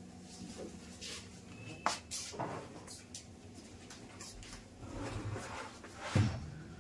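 Scattered light rustles and small knocks over a low steady hum, with a sharper thump about six seconds in.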